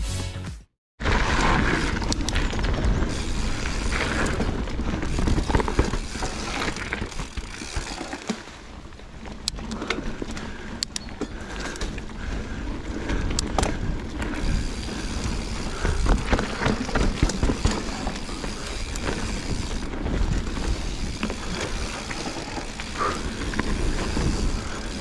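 Mountain bike being ridden along a dirt trail: a steady rumble of tyres and a rattling bike, with scattered sharp clicks.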